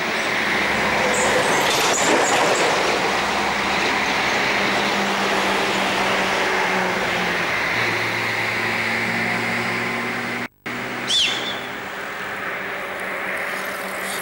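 Train running, heard from aboard: a steady rumble with a low hum. The sound cuts out briefly about ten and a half seconds in and is followed by a short high squeal.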